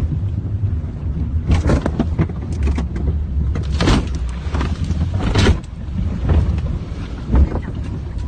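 Flash floodwater surging around and against a car, heard from inside it: a steady low rumble broken by irregular sudden louder bursts, the strongest about four and five and a half seconds in.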